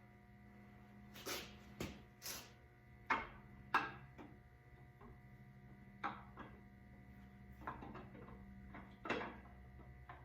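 Metal engine parts and hand tools knocking and clinking as an International 345 V8 is taken apart, about a dozen separate knocks at irregular intervals, a few of them sharp and loud. A steady electrical hum runs underneath.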